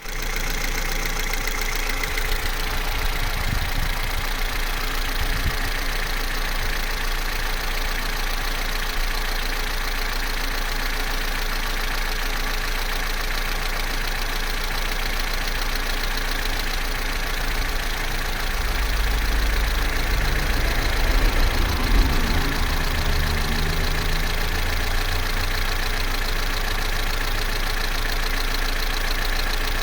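Vauxhall Corsa C's Z14XEP 1.4-litre four-cylinder petrol engine idling steadily. The low rumble grows louder for a few seconds about two-thirds of the way through.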